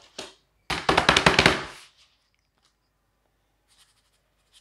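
Pages of a large paper book being turned and riffled, a rapid papery flutter lasting about a second, with a short softer rustle just before it.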